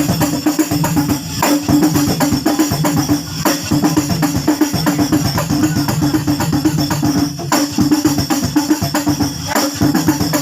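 Hadroh percussion ensemble playing a fast instrumental rhythm, with hand drums and jingling tambourines and no singing. The pattern breaks briefly about every two seconds.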